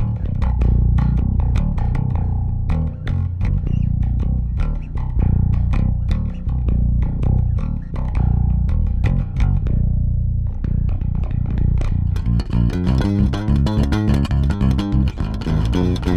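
Warwick Vampyre SN-5 five-string electric bass with MEC active pickups, played with the onboard EQ bypassed. It plays a line of plucked notes, then turns to a faster, brighter run of rapid notes about twelve seconds in.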